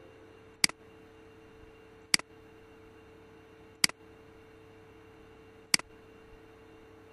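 Four sharp computer mouse clicks, a second and a half to two seconds apart, over a faint steady hum.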